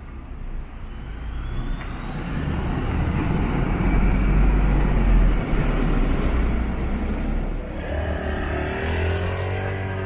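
Road traffic: a motor vehicle passing close by, its engine and tyre noise building to a peak about halfway through, with a faint rising whine as it approaches. Near the end a second engine note bends up and down in pitch.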